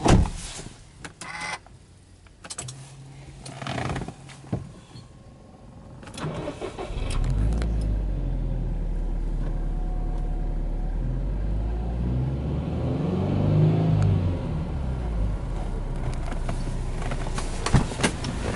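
Subaru Impreza WRX STI's turbocharged flat-four boxer engine started from inside the cabin: a few clicks and a short hum, then the engine cranks and catches about six seconds in and settles into a steady idle. Near the middle of the idle the revs rise and fall once briefly.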